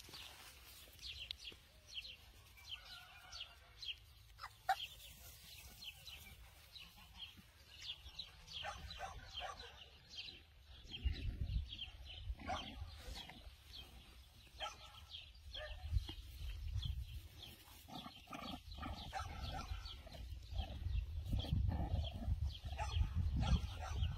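Young puppies squeaking and yipping at play, with short high-pitched cries scattered throughout. A low rumble on the microphone comes in about halfway through and grows louder near the end.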